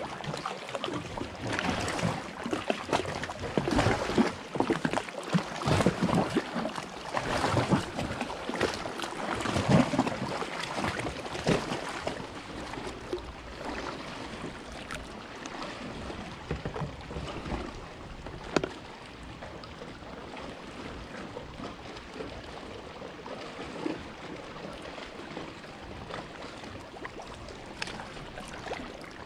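Kayak paddle strokes dipping and splashing in calm river water, with drips and water lapping at the hull. The strokes come every second or two, then stop about twelve seconds in, leaving a quieter wash of water with the odd small knock.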